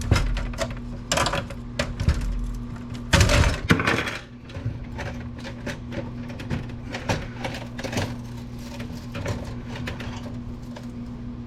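Clicks, knocks and clatter of metal and plastic computer parts being handled and pried apart during disassembly, with a louder rattling scrape about three seconds in. A steady low hum runs underneath.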